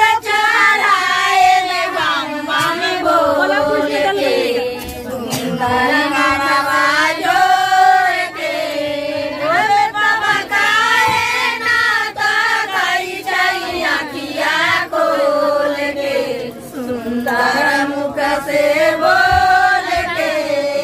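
A group of women singing a song together in unison, unaccompanied, with long held notes.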